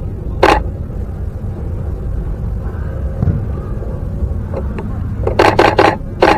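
Canon 5D Mark III DSLR shutter and mirror firing: one single shot about half a second in, then near the end a rapid continuous-shooting burst of four frames at about six a second, with another burst starting right at the end. A steady low rumble runs underneath.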